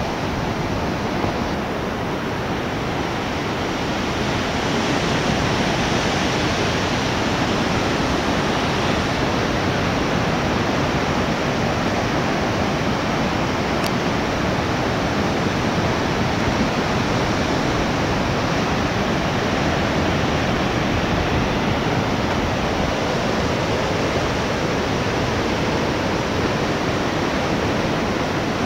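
Steady rush of ocean surf breaking on rocks and sea stacks, an even noise with no let-up.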